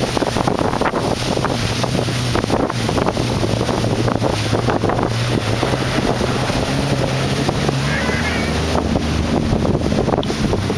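A motor vehicle's engine running steadily under heavy wind noise on the microphone. Its pitch drops about eight seconds in.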